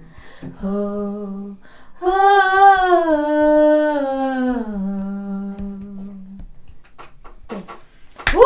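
A young woman singing unaccompanied without words, humming a Nepali song's melody: a short held note, then a long phrase that slides down and ends on a low held note.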